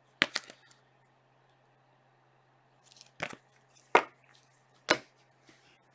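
Trading cards in rigid plastic top loaders and sleeves being handled and set down, giving a few sharp plastic clicks: one just after the start, then three about a second apart in the second half, over a faint steady low hum.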